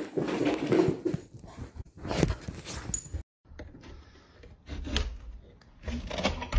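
Bedding rustling and scuffling with a few knocks, and a dog's low grumble in the first second. A sudden break about three seconds in, then quieter rustling and scattered clicks.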